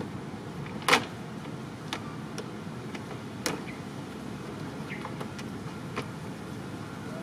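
Knocks and clatters of a macaque moving about inside a plastic pet carrier with a wire door. A sharp knock about a second in is the loudest, with several lighter ones after it, over steady background noise.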